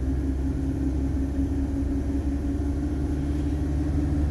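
Camper van's engine and road noise heard from inside the cab while driving: a steady low rumble with a constant engine drone over it.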